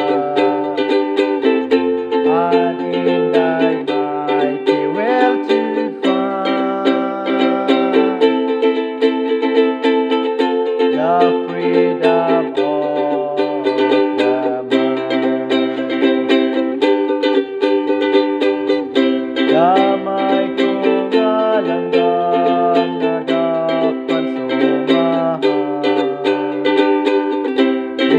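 Ukulele strummed steadily to accompany a voice singing a hymn melody, with the voice sliding into some of its notes.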